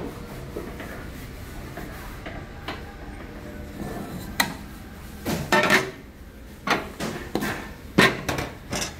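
Pots and a frying pan clattering as they are handled on a gas range: a run of sharp metal knocks and short clatters starting about halfway through, the loudest near the end.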